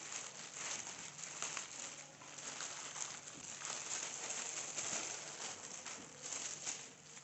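A plastic courier mailer being slit open with a utility knife and a product in a clear polybag pulled out of it: continuous rustling and crinkling of thin plastic with many small crackles.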